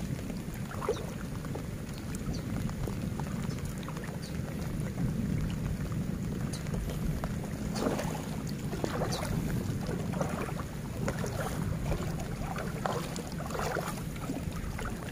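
Water lapping and splashing around a small fishing boat in short, irregular bursts, over a steady low rumble of wind on the microphone.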